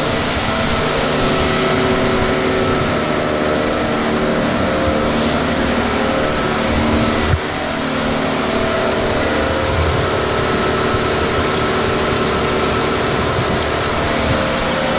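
Steady machinery drone running at a constant speed: a hum with several fixed pitches over a hiss, with a single knock about halfway through.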